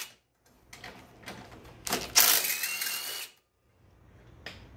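Cordless impact driver hammering for about a second midway, with a faint rising whine, as it backs out a 3/8 in cylinder head bolt on a Briggs & Stratton mower engine. Faint clicks of the tool and bolt come before and after.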